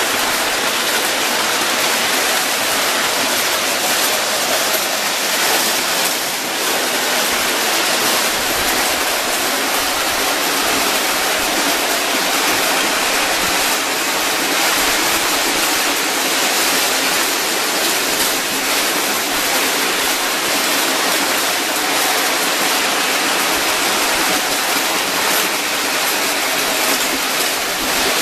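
Several O scale Lionel and Williams electric toy trains running at once on tubular tinplate track: a loud, steady, even noise of wheels and motors on the metal rails.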